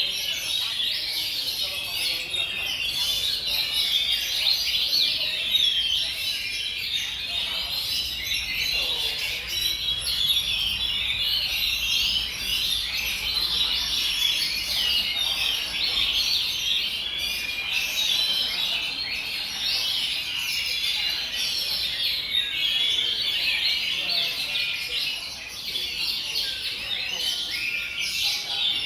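Many caged oriental magpie-robins singing at once, a dense unbroken chorus of fast, varied whistles and chirps.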